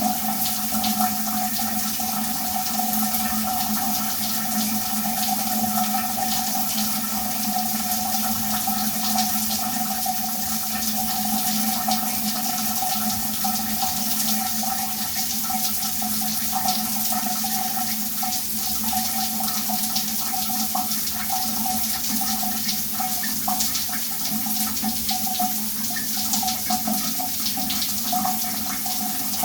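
Shower running steadily, water spraying and splashing in a small tiled room, with a steady resonant tone under the rush.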